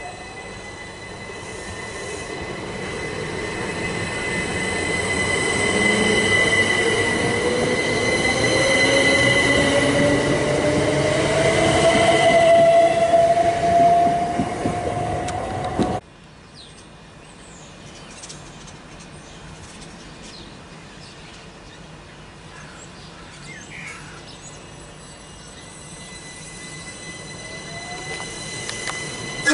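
Class 377 Electrostar electric train running past at close range, its motor whine rising steadily in pitch under a steady high tone. The sound cuts off suddenly about halfway through, leaving a much quieter rumble as a second Class 377 approaches, growing louder near the end.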